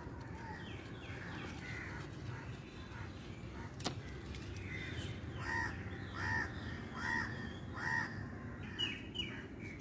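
A crow cawing four times in a row, about one caw every 0.8 s, starting a little past halfway. Fainter calls of other birds come before it, and there is one sharp click about four seconds in.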